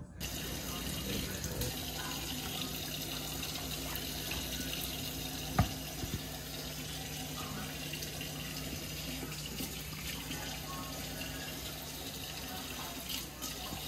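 Kitchen tap running steadily into a sink, with a sharp knock a little before halfway and two softer knocks just after.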